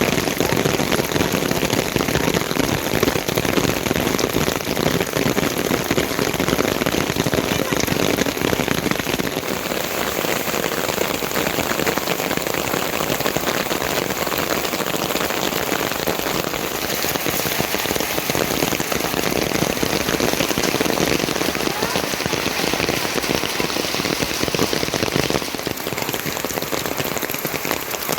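Heavy rain falling, a steady dense hiss. Its tone shifts slightly three times, about a third, two thirds and near the end of the way through.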